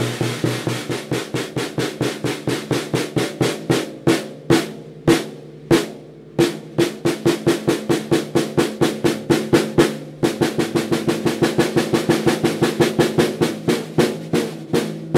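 Quick repeated stick taps on a 14x6.5 birch/walnut Mapex Armory Exterminator snare drum, each with a short ringing tone, as a tension rod is tightened with a drum key to tune the head. The taps come a few a second, thinning out briefly about four seconds in before picking up again.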